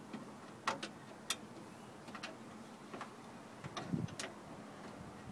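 Scattered light metallic clicks and taps as a window-regulator bolt is fitted and threaded by hand into the steel inner panel of a Honda Odyssey door, with a small cluster of clicks near four seconds in.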